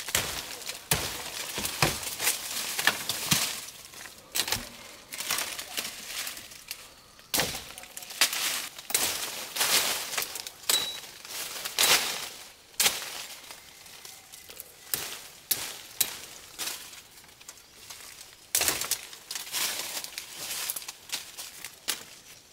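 Dry leaves and twigs crackling and snapping in quick, irregular bursts as forest saplings and branches are grasped and pulled, with a few quieter spells in between.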